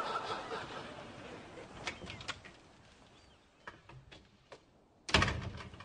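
Studio audience laughter dying away, then a few light clicks and one loud thud with a brief rattle near the end.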